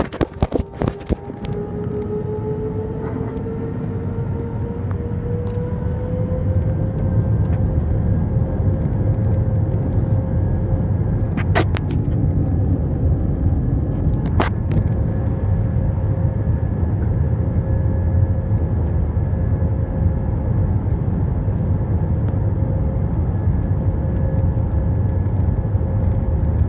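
Airbus A320's jet engines heard from inside the cabin as the airliner rolls along the runway: a steady low rumble with an engine whine that rises in pitch and gets louder over the first several seconds, then holds steady. A few sharp clicks near the start and two more around the middle.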